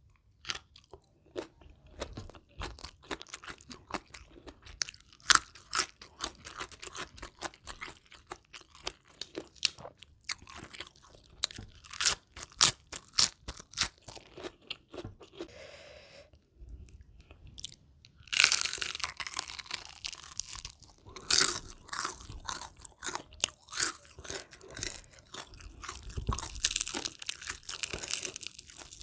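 Close-miked biting and chewing of crunchy food, a dense run of sharp crunches, thickest and loudest from about two-thirds of the way through.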